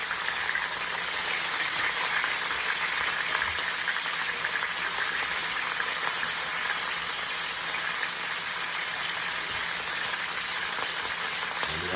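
Filet mignon searing in hot vegetable oil in a frying pan: a steady sizzle with fine crackling and popping throughout.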